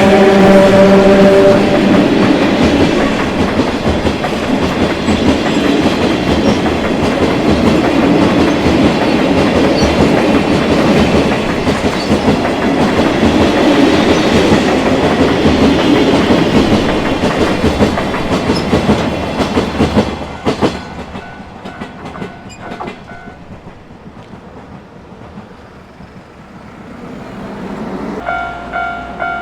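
Sangi Line train passing over the level crossing, its wheels clattering over the rail joints for about twenty seconds before the last clacks trail off. A horn sounds at the start, and near the end a pulsing ringing tone begins.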